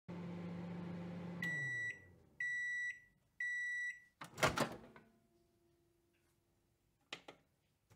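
Microwave oven running with a steady hum that winds down, as three long, high beeps about a second apart signal the end of the cooking cycle. A loud clunk follows about four seconds in, and a couple of short clicks come near the end.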